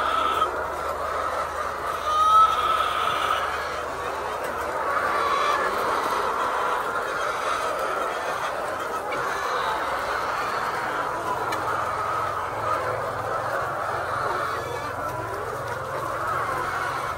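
A flock of chickens in a poultry shed, many birds clucking and calling at once in a steady dense chatter. A couple of louder single calls stand out near the start.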